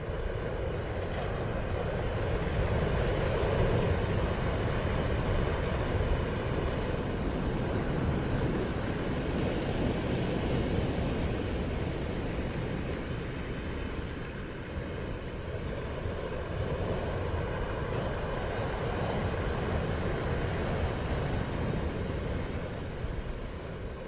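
Gentle ocean surf breaking and washing up a sandy beach: a steady rushing noise with a deep rumble that swells and eases every several seconds as each wave comes in.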